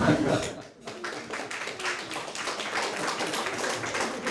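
A small audience clapping, starting about a second in. The individual hand claps can be told apart.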